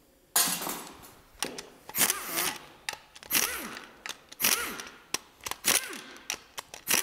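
Power wrench spinning out the oil pan bolts in about ten short bursts, each a quick whirr that rises and falls.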